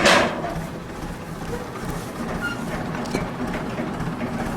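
A vehicle running with a steady low rumble and some rattling, after a short loud burst of noise at the very start.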